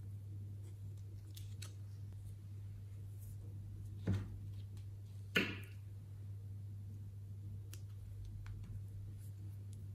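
Soft handling of a slime-filled plastic piping bag: faint scattered clicks and two brief louder rustles, about four and five and a half seconds in, over a steady low hum.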